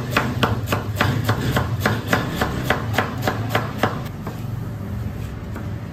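Knife shredding lettuce against a cutting board: quick, even chops, about three or four a second, that stop about four seconds in. A steady low hum runs underneath.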